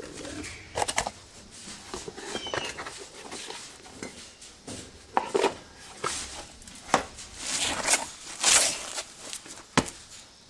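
Metal tools and brake parts clinking and scraping: irregular sharp clicks and knocks, with a longer scraping stretch about three-quarters of the way through.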